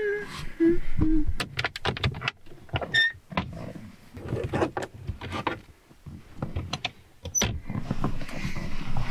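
Bedding and blankets rustling as they are shifted and spread out in a small car cabin, with irregular knocks and clicks as a hinged wooden panel beside the bed is moved. A brief squeak about three seconds in.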